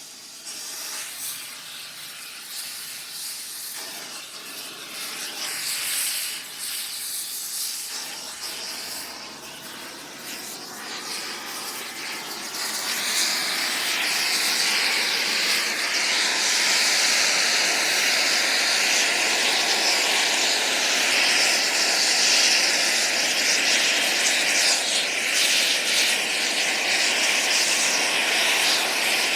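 Air torch on metal, a continuous hissing rush. It grows louder about 13 seconds in and then holds steady, with a faint whistling tone running through it.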